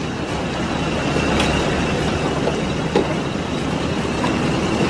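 Steady outdoor street noise: an even rumble and hiss like traffic, with a faint high whine throughout.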